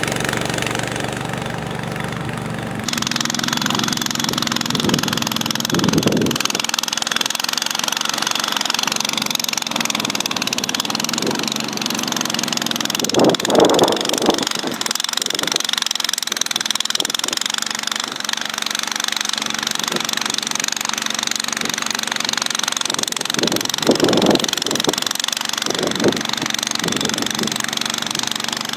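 Honda snowblower's small engine running steadily, with a hiss coming in about three seconds in and a few brief louder swells.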